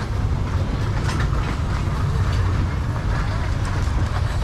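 Busy street-market ambience: a steady low rumble with scattered clicks and clatter.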